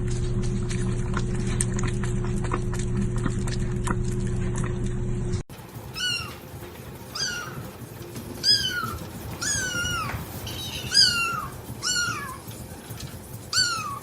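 A steady mechanical hum with faint clicks, cut off abruptly about five seconds in. Then a cat meows about eight times in quick succession, each meow a short high call that rises and falls in pitch.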